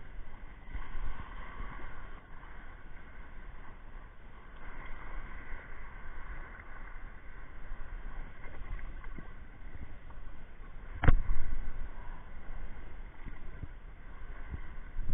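Sea water washing and splashing, with a low rumble of wind on the microphone; one sharp knock about eleven seconds in.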